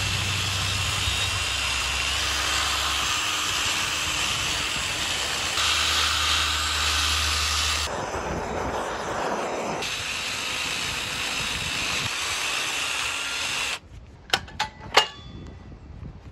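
Cordless drill spinning a stiff brush wheel against charred wood, scrubbing the burnt surface off a torched carving: a steady whirring scrub with a low motor hum in places, changing abruptly a few times. It stops suddenly near the end, followed by a few sharp knocks as the carving is handled.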